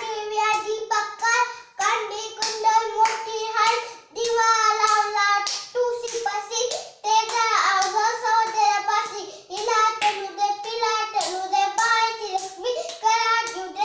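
A young child singing a devotional song before a home shrine, clapping his hands in a steady beat as he sings.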